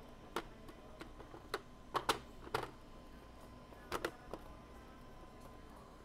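Sharp plastic clicks and knocks, about seven scattered over six seconds, as the top hopper of a Good Nature M1 mini juicer is handled and seated onto the machine, a component meant to lock on with a click.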